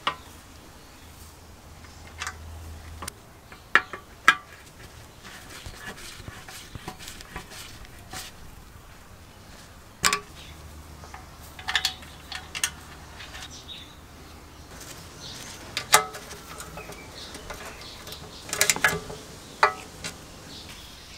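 Intermittent sharp clicks and knocks of hand tools and metal parts as a small engine is reassembled: the engine set down on wooden blocks, a screwdriver driving screws, and a socket wrench on a bolt.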